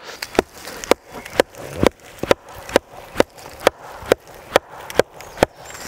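A carved hazel tent peg being hammered into the ground with about thirteen sharp, evenly spaced wooden knocks, a little over two a second.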